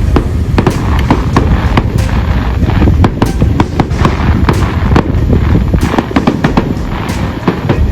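Fireworks display in full barrage: a rapid, irregular string of bangs and crackles, several a second, over a continuous low rumble.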